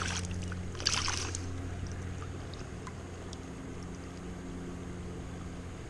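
A small juvenile steelhead splashing in shallow river water as it is held by hand, with two splashes in the first second and a half, then the steady run of the stream under a low steady hum.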